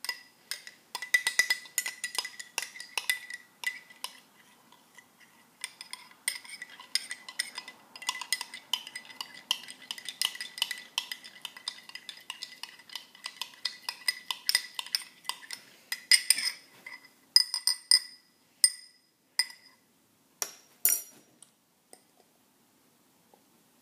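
A metal spoon beating raw egg in a drinking glass: rapid, irregular clinking of spoon against glass, with a light ringing from the glass. The clinks thin out to a few separate taps and stop a couple of seconds before the end.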